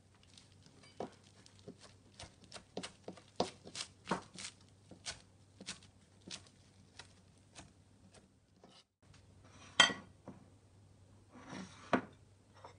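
Chef's knife chopping parsley on a plastic cutting board: irregular knocks, roughly two a second, for about six seconds. After a short break, one louder knock, then near the end a brief rustle and a sharp click as a ceramic baking dish is handled on the counter.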